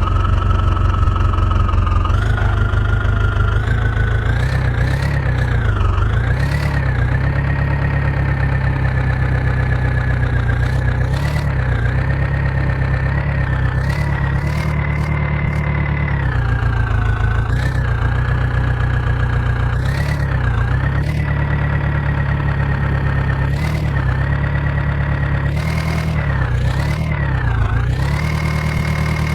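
Heavy diesel engine of a tractor or backhoe loader running at work, its speed rising and falling again and again under load, with a few short knocks.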